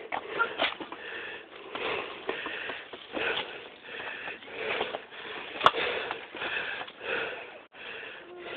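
Heavy, rhythmic breathing of someone out of breath from climbing over rocks, close to the microphone, with one sharp click partway through.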